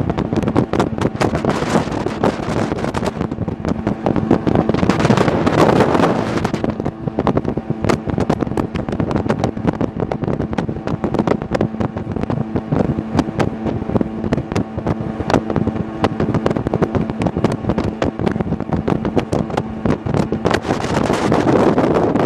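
Sea-Doo Speedster jet boat under way, its engine droning steadily under rushing wind and water noise that swells about five seconds in and again near the end.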